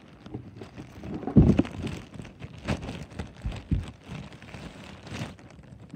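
Close handling noise: irregular rustling and muffled bumps, the loudest a little over a second in.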